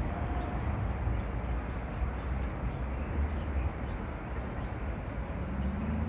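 Outdoor background noise: a steady low rumble under an even hiss, with no distinct events.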